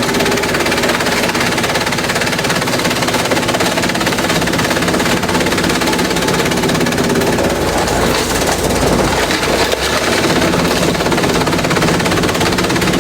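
Industrial bamboo shredder running loud and steady, a dense rapid rattle of bamboo being chopped over the drone of its motor.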